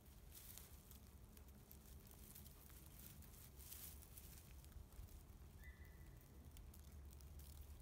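Near silence with faint rustling and soft clicks as a Labrador puppy chews and mouths a canvas retrieving dummy in the grass, over a low steady rumble. A brief faint high tone sounds a little past the middle.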